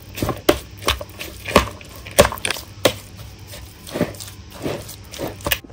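A metal utensil stirring shredded cabbage and carrot coleslaw with mayonnaise in a plastic bowl. It makes irregular clicks and scrapes against the bowl, about three a second.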